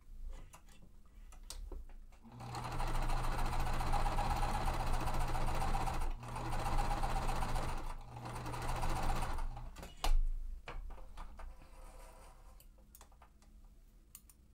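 Sewing machine stitching a seam at a steady speed for about seven seconds, with a brief stop near the middle, then stopping; a single thump follows just after it stops, with a few light clicks before and after the stitching.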